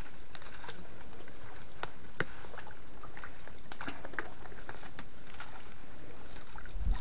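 Small water splashes and drips, scattered and irregular, as a net fish trap is lifted and handled in shallow swamp water, over a steady high-pitched hiss.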